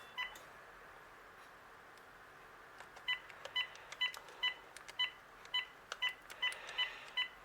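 VTech CS6114-11 cordless handset keypad beeping as a number is dialed out: about eleven short, identical beeps with faint button clicks, starting about three seconds in.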